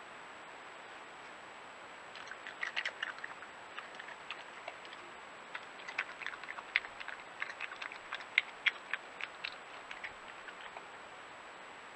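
Badger crunching peanuts: a run of sharp, irregular clicks and crunches starting about two seconds in and dying away near the end, over a steady hiss and a faint high whine.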